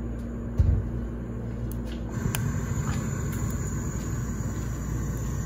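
Gas stove burner running under a frying pan: a steady low rumble that grows louder about two seconds in, with a single knock shortly before that.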